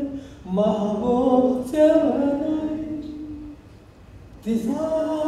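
A man singing unaccompanied into a microphone: long drawn-out phrases of held notes that glide slowly in pitch, with a short break about four seconds in.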